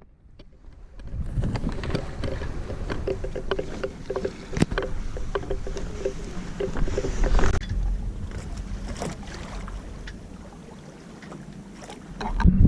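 Water sloshing and splashing along a sailboat's hull as it moves, with occasional knocks and clicks on board.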